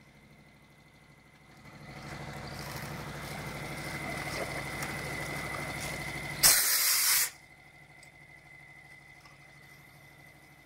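Compressed-air mortar spray hopper gun in use. A steady hiss over a low hum builds up about two seconds in. About six and a half seconds in comes a short, very loud blast of air lasting under a second, then it drops back to a faint hiss.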